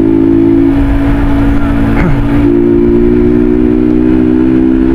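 Motorcycle engine running at a steady cruise, close to the bike-mounted microphone, with wind and road rumble underneath. A brief falling sound cuts across about two seconds in.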